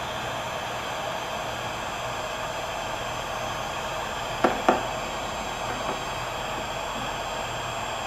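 Porter-Cable heat gun running with a steady blowing hiss as it shrinks heat-shrink tubing over a headlight wire. Two sharp knocks close together about four and a half seconds in.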